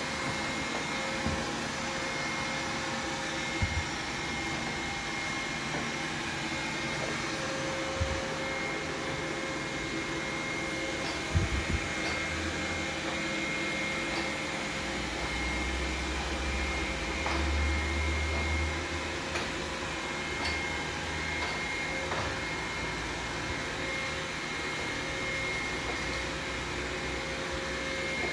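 Xiaomi 2C robot vacuum running steadily, a whirring hum with a steady whine, broken by a few short knocks.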